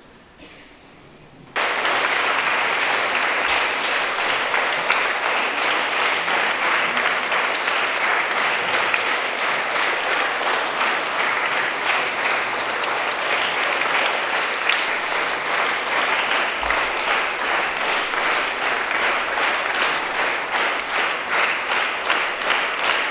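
Audience applauding: dense, steady clapping that starts abruptly about a second and a half in and cuts off suddenly at the end.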